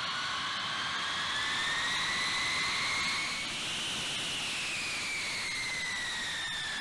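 B-52 bomber's jet engines running with a loud turbine whine over a rushing roar; the whine rises in pitch for about three seconds, then slowly falls.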